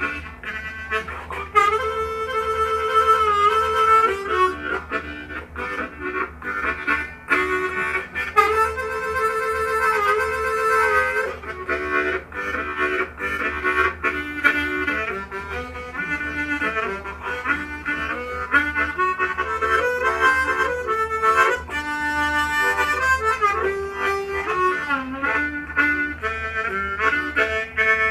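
Diatonic blues harmonica in G playing a train imitation: choppy rhythmic chords, broken twice by long held chords that waver in pitch.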